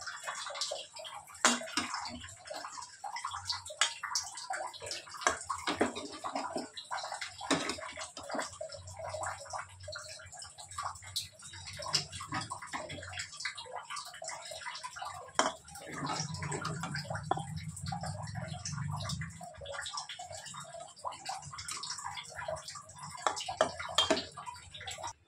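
Steel slotted spoon scraping and clinking against a metal cooking pan and a steel serving plate as cooked rice is scooped out and served, a continual run of small scrapes and clicks. A low hum joins for a few seconds past the middle.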